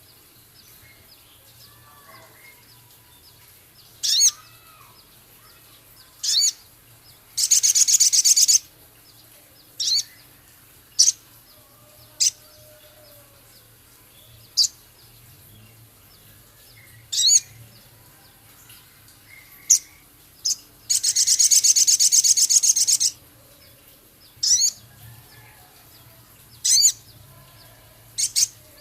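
Male sogon bird singing: short, sharp, high whistled notes every second or two, broken twice by a longer rapid, harsh chattering trill ('crecet kasar') lasting one to two seconds. A faint low hum runs underneath.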